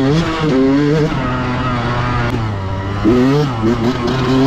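Yamaha YZ125X dirt bike's 125 cc single-cylinder two-stroke engine revving under riding, its pitch repeatedly climbing and dropping with the throttle. It eases off to a lower, steadier note about two seconds in, then revs hard again about three seconds in.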